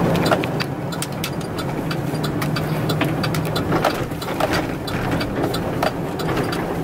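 Chevrolet 2500 HD pickup's 6.0 Vortec V8 running at low speed, heard from inside the cab as the truck turns slowly, with scattered sharp clicks and rattles over the steady engine hum.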